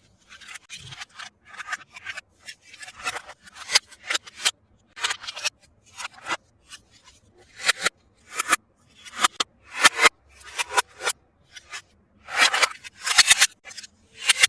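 Toy packaging being opened and handled by hand: an irregular string of short, crisp strokes, sometimes several a second, heavier near the end.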